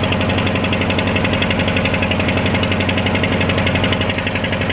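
Boat engine running steadily under way, a fast, even chugging pulse.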